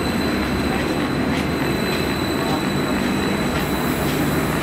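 Transport for Wales Stadler FLIRT multiple unit running in close along the platform, a steady rumble of wheels and traction with a low hum.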